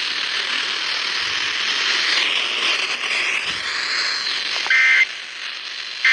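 Loud radio static hiss, then near the end short, shrill bursts of the Emergency Alert System's digital header tones, the screechy two-tone data burst that opens a Required Monthly Test.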